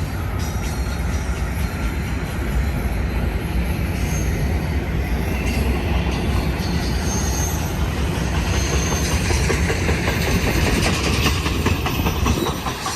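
A freight train rolling past, its cars rumbling steadily with faint high wheel squeal. Over the last few seconds the wheels click in quick succession over the rail joints.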